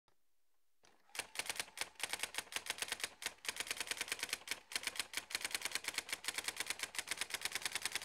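Brother GX-6750 daisy wheel electronic typewriter printing a line: the print hammer strikes the daisy wheel in a fast, even clatter of about nine strikes a second, with a couple of brief gaps. It starts about a second in.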